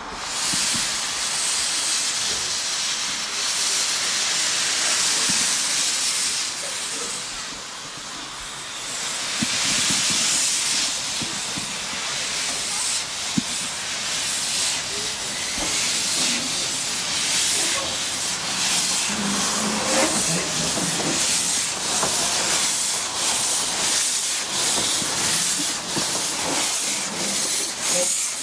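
Narrow-gauge side tank steam locomotive No. 823 'Countess' hissing loudly, steam blowing from its open cylinder drain cocks; the hiss dips briefly about eight seconds in. In the last part, as it moves off, its exhaust comes through as a regular beat of chuffs, a little under two a second.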